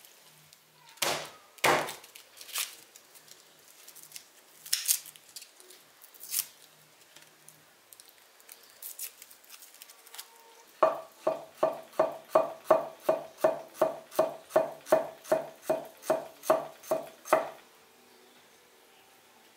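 A chef's knife chopping garlic on a wooden cutting board: a steady run of about twenty strokes, some three a second, each with a short ring from the blade and board. A few separate knocks come before it.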